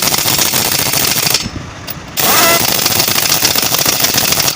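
Pneumatic impact wrench hammering on a truck's wheel nuts in two long bursts, the first about a second and a half, the second about two seconds, with a short pause between.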